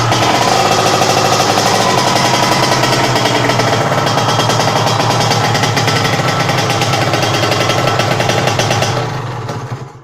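Kawasaki Ninja engine in a Honda C70 running steadily with a rapid, even firing beat, then dying away about a second before the end as it shuts off.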